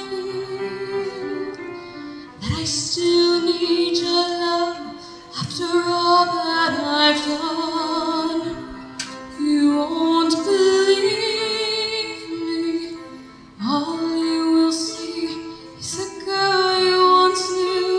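A female vocalist singing a Broadway show tune with live band accompaniment, with long held notes sung with vibrato.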